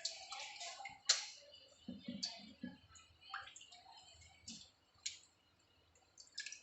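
Washed raw chicken pieces being put into a strainer basket: scattered clicks and soft wet taps, a few at a time, with a cluster of duller knocks about two seconds in.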